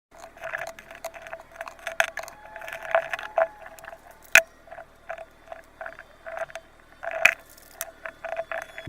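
Slime being worked, giving an irregular run of short sticky clicks and squelches, with two sharper, louder pops about four and seven seconds in.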